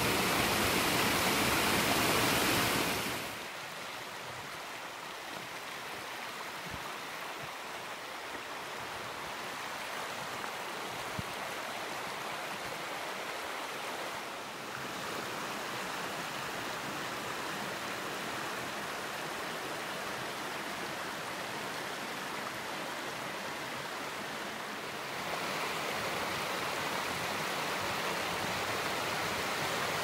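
Mountain stream running over stones, a steady rush of water. It is loudest for the first few seconds, drops, and grows louder again near the end.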